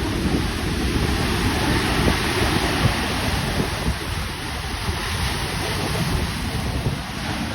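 Rough, stormy sea surf washing and breaking on the shore, a continuous loud churn, with strong wind buffeting the microphone.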